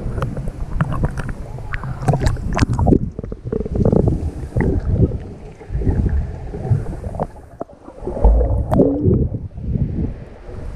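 Water sloshing and splashing around a handheld action camera at the sea's surface. About three seconds in it turns to muffled, dull underwater swishing as the camera goes under, with one heavy low thump near the end.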